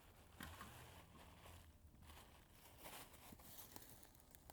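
Faint, irregular rustling and handling noises with a few short scrapes, from trash and a bag being handled.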